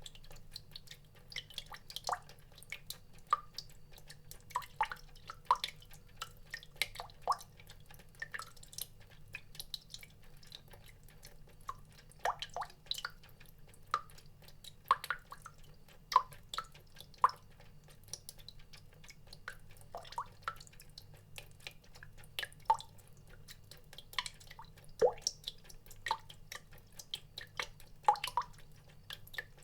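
Water drops falling into water, plinking irregularly a few times a second, some louder than others, over a faint steady low hum.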